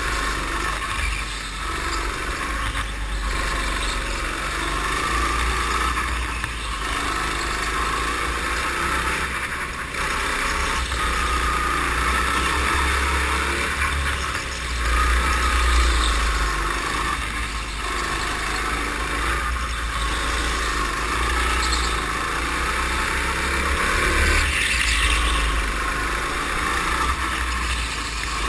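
A go-kart's small petrol engine running hard through a lap, heard from the driver's seat, its level dipping briefly every few seconds as it eases off for the corners, with the tyres squealing on the smooth concrete floor.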